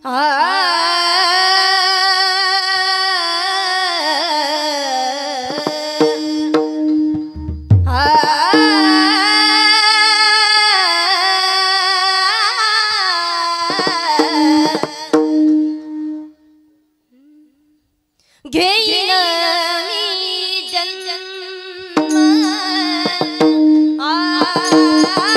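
A woman singing a Marathi Warkari abhang in long, drawn-out phrases with wavering, ornamented held notes over a steady drone note. There is one low drum thump about seven seconds in, and the singing breaks off for about two seconds roughly two-thirds of the way through before it starts again.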